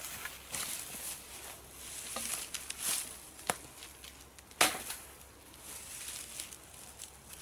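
Dead branches and twigs being handled and laid onto a wood pile: rustling and the crackle of dry wood, with sharp cracks of wood snapping or knocking, the loudest a little past the middle.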